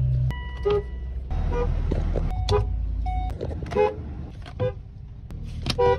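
A string of short car horn toots, about six quick beeps roughly a second apart, with the background changing abruptly between them as different cars' horns follow one another.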